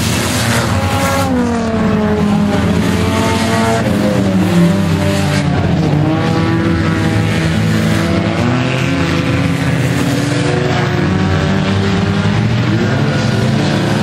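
A pack of dirt-track stock cars racing past, several engines running hard together. Their pitch slides down as each car goes by and climbs again as the cars accelerate.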